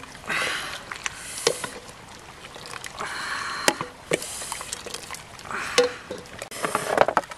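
Broth sloshing and splashing in a metal cooking pot as it is stirred with a wooden spoon, with several sharp knocks of the spoon against the pot.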